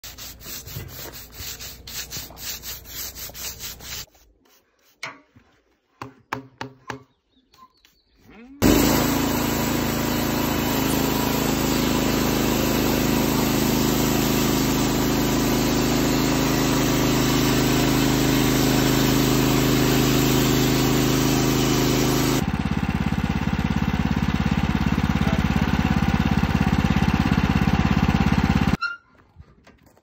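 A stiff brush scrubbing dirt and grit off a log's bark in quick, regular strokes, followed by a few scattered scrapes and knocks. Then a Wood-Mizer LX55 portable band sawmill comes in suddenly and runs loud and steady as its band blade cuts the log. About two-thirds of the way in the sound turns rougher and more pulsing, and it cuts off abruptly near the end.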